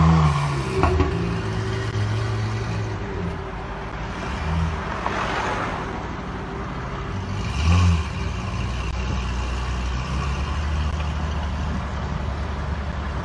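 Pagani Zonda's V12 engine running at low speed as the car pulls away and drives off, with short throttle blips about one, five and eight seconds in.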